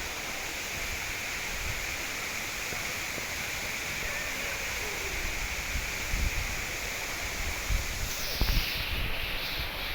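Waterfall rushing steadily, with wind buffeting the microphone in low thumps about six seconds in and again near the end.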